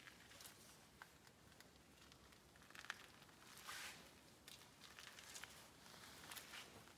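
Near silence: room tone with faint, scattered scuffs and clicks of footsteps on a concrete floor.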